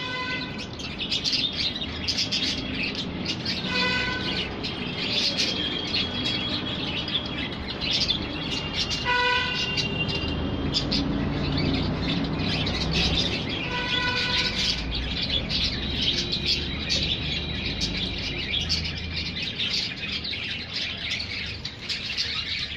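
Many small birds chirping and twittering without a break. A short steady tone sounds four times, a few seconds apart.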